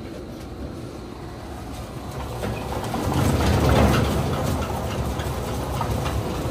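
Weima WL4 wood waste grinder running, its rotor grinding wood scraps with a steady rumble and a scatter of crackles from the chips. The grinding grows louder about three seconds in and stays up.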